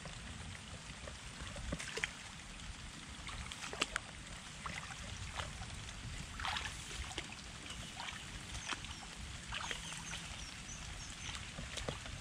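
Footsteps wading through shallow floodwater and wet grass: irregular splashes and swishes of legs and feet moving through water and stems.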